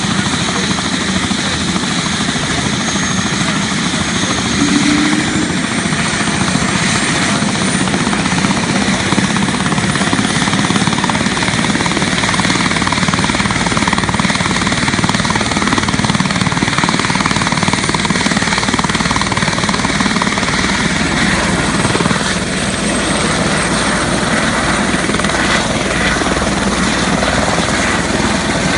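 Eurocopter EC130 turbine helicopter running on the ground with its main rotor spinning up before lift-off. It makes a steady loud whine and whoosh, and the low rotor beat grows stronger about eleven seconds in.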